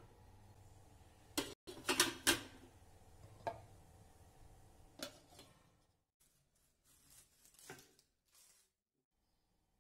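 Stainless steel steamer pot and lid clinking and knocking several times, loudest about two seconds in. In the last few seconds come soft strokes of a knife slicing an onion on a wooden board.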